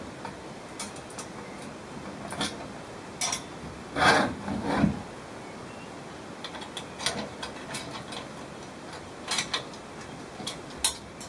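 Homemade galvanised steel kayak loader being moved and locked in its towbar mount: scattered metal knocks, scrapes and clicks, loudest in a rattling clatter about four to five seconds in, then lighter taps and clicks.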